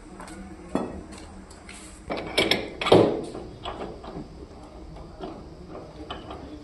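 Metal tools striking and clanking against metal parts: a sharp clank a little under a second in, a cluster of louder strikes between two and three seconds in with the loudest near three seconds, then lighter taps.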